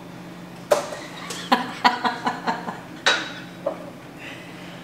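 A quick run of sharp clinks of ice cubes and bar glassware, about ten over three seconds, as a drink is built on the rocks.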